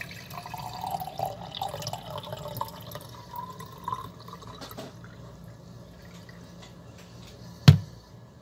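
Water being poured into a glass jar, its pitch rising as the jar fills, for about four seconds, over a steady low hum. Near the end comes a single sharp thump, the loudest sound.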